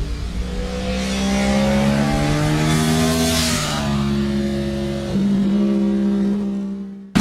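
An engine running at changing revs, its pitch stepping up and down, with a rushing whoosh about three seconds in. It cuts off abruptly near the end.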